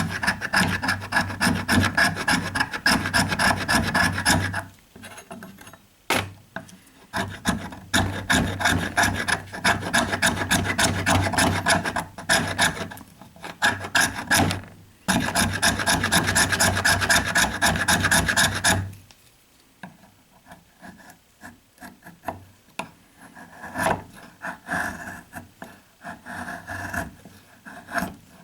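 Knife blade scraping a stick of fatwood in quick repeated strokes to raise fine shavings for tinder. It comes in long runs with short breaks, and the last third is lighter, sparser scraping.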